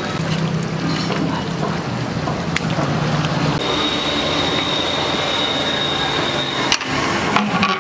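Large pot of chicken masala for biryani cooking over a strong flame: a steady sizzling, bubbling rush, with a thin high whistling tone from about three and a half to nearly seven seconds in. There are a couple of sharp knocks near the end.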